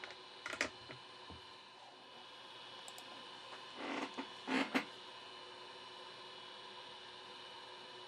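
Faint steady electrical hum, with a few small clicks about half a second in and a brief scraping, rustling handling noise around four seconds in.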